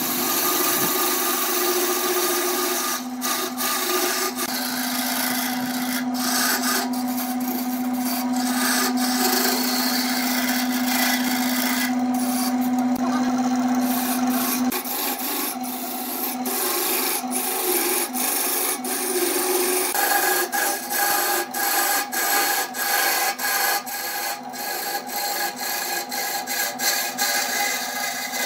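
A hand-held turning tool cutting a spinning wooden vase blank on a 750 W BURT wood lathe: a continuous rough scraping and shaving sound over the lathe motor's steady hum. The hum stops about halfway through, and in the last several seconds the cutting turns choppy and intermittent.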